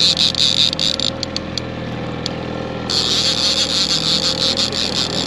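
Boat engine running steadily at low speed, with a high hissing noise that stops about a second in and comes back about three seconds in.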